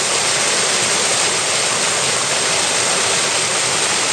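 Mountain stream rushing over rocks and a small cascade: a steady, even hiss of flowing water.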